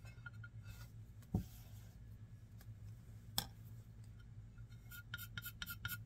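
Underglaze pencil scratching on a bisque-fired ceramic plate, faint, breaking into a run of short, quick strokes near the end. A single thump comes about a second in, and a sharp click a couple of seconds later.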